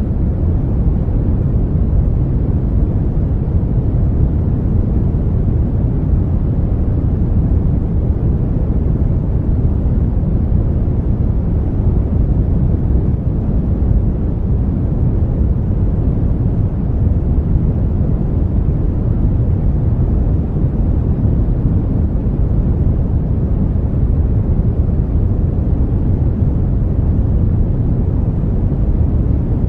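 Brown noise: a steady, deep rushing hiss, with most of its weight in the low end, that does not change.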